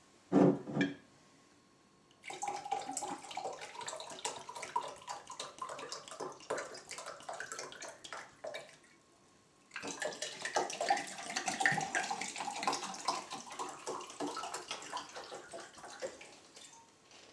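Gin poured from a glass bottle into a glass tumbler in two long pours of about seven seconds each, with a short break between them. A short knock sounds about half a second in.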